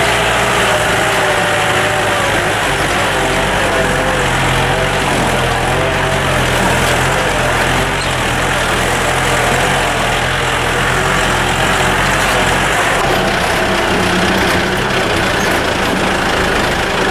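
A jeep's engine running as the vehicle crawls over a rough dirt hill road, its note wavering up and down, with road and wind noise, heard from the cab through an open window.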